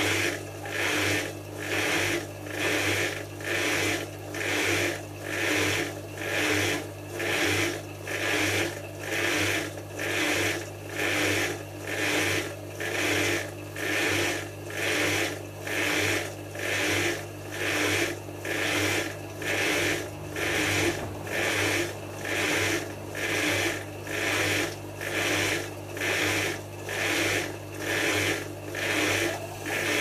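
Hotpoint HF8B593 washing machine drum turning slowly with a small load of cottons tumbling inside: a rhythmic swish and rub a little faster than once a second over a steady motor hum.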